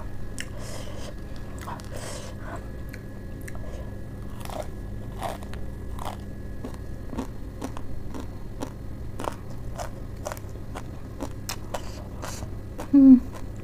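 Crunchy chewing of a mouthful of spicy Wai Wai instant noodles wrapped in lettuce, with many irregular crisp crunches and bites. A short, loud voiced hum comes about a second before the end.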